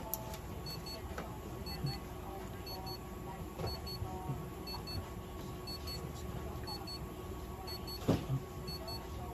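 A handheld light-therapy unit giving short double beeps about once a second while it runs a timed one-minute treatment, over a steady hum; a single knock sounds about eight seconds in.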